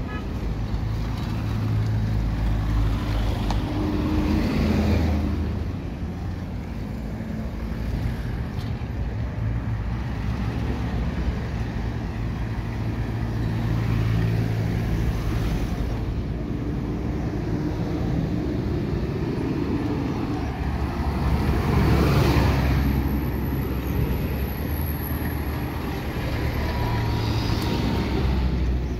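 City street traffic: motor vehicle engines running, with vehicles passing close by several times, loudest about a third of the way in and again near the three-quarter mark.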